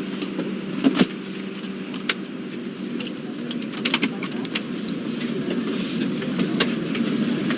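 Passengers boarding an airliner: a steady background of noise with scattered clicks, knocks and light rattles of bags and belongings.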